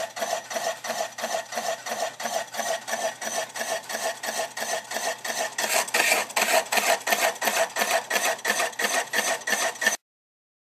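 An old metal-working lathe cuts a spinning wooden bowl blank with a tool-post cutter, making a rhythmic scraping at about four pulses a second. It grows a little louder about six seconds in and cuts off suddenly near the end.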